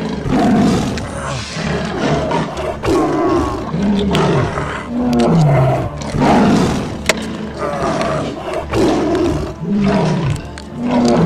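A string of dubbed-in animal roar sound effects, one after another, several sliding down in pitch, over background music.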